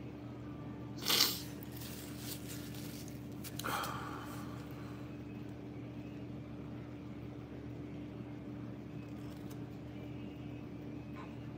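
Steady low hum of a quiet room, broken by a short, sharp hissing rush about a second in and a softer one near four seconds.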